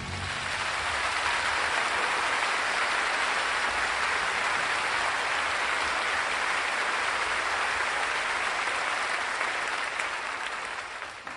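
Audience applauding, a steady clapping that dies down near the end.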